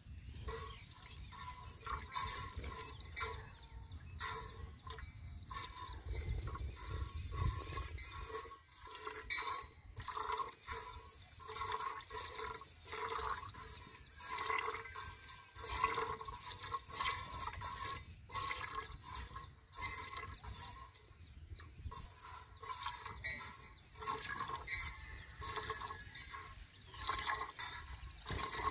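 Cow being milked by hand: jets of milk squirting into a milk pail in a steady rhythm of short bursts, each with a faint ringing.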